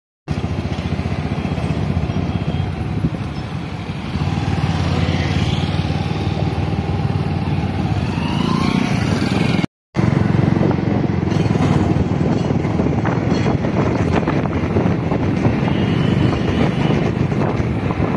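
Steady running noise of a moving motor vehicle: engine drone and road noise, loud and unbroken except for a brief gap about ten seconds in.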